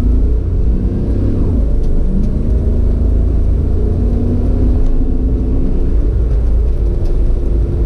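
A motor vehicle under way: steady low engine and road rumble, with a faint engine note that drifts up and down in pitch.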